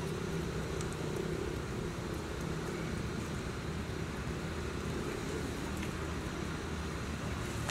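Steady low engine hum, with no clear starts or stops.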